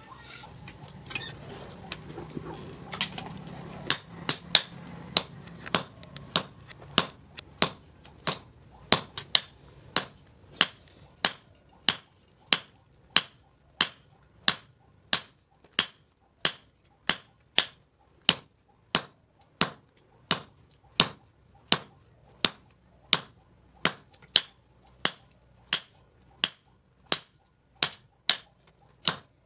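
Hand hammer forging a red-hot steel meat-cleaver blank on an anvil: a steady beat of about two blows a second, each blow ringing briefly. The first few seconds hold only a few irregular blows before the steady beat sets in.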